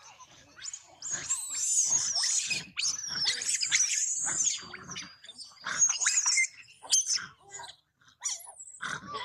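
Long-tailed macaque screaming: repeated high-pitched shrill calls that slide up and down in pitch, in bouts with a brief lull near the end.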